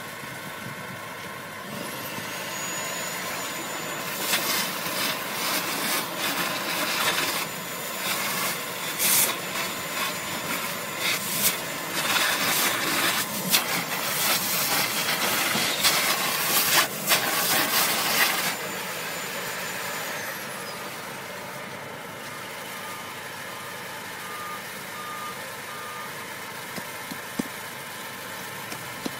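A vacuum cleaner's motor spins up with a rising whine about two seconds in and runs steadily, its long metal nozzle sucking drill dust and grit out of the anchor holes in a rubber speed hump in loud, uneven rushes with crackles; the motor winds down with a falling whine about twenty seconds in. A steady low hum runs underneath.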